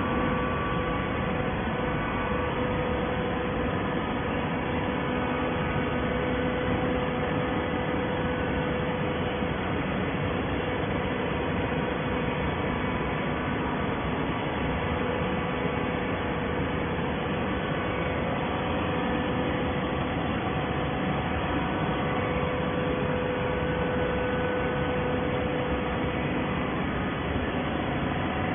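Horizontal hydraulic baler and its feed conveyor running in a factory: a steady machine hum with a held mid tone over even noise and no distinct strokes or bangs.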